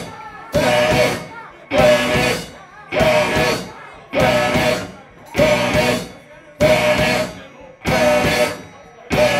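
Live rock band of electric guitar, bass and drums playing a stop-start riff: the whole band hits together about once every 1.2 seconds, each hit ringing and fading before the next, some eight hits in all.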